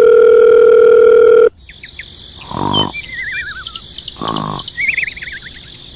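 A steady, loud electronic phone-ringing tone for about a second and a half, then cartoon snoring sound effects: two snores, each with a wavering whistle after it, and little chirps in between.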